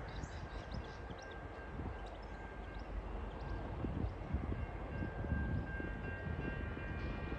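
Distant TasRail DQ-class diesel-electric locomotive approaching with its train. Its low engine and rail rumble grows slightly louder over the last few seconds, under faint steady high tones.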